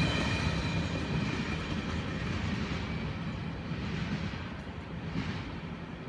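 The last cars of a freight train roll past on the rails. The rumble and wheel noise fade steadily as the train moves away.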